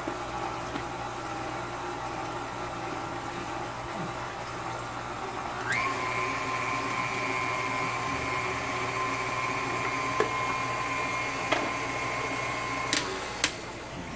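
KitchenAid Artisan stand mixer running, mixing bread dough. About six seconds in its motor whine rises suddenly as it is sped up and holds steady; it drops near the end with a couple of sharp clicks.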